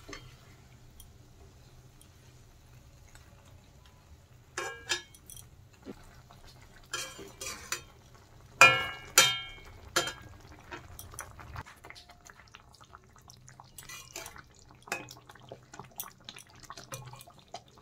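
Flat metal spatula knocking and scraping against a metal wok as fried aubergine slices are turned in yogurt gravy. There are a few ringing clinks between about four and ten seconds in, followed by small scattered ticks from the simmering gravy.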